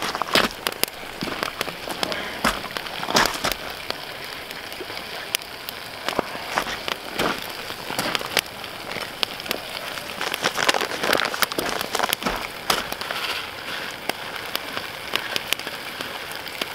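Wood campfire crackling and popping under a camp grill, many sharp snaps over a steady hiss from the pans of trout and noodles cooking on it.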